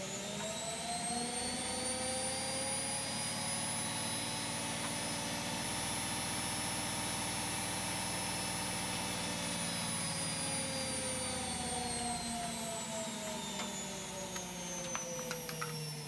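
Hotwired brushed universal motor of a Currys Essentials washing machine, run on a variac: its whine climbs in pitch as it speeds up, holds steady, then falls over the last few seconds as it slows. A few faint clicks near the end.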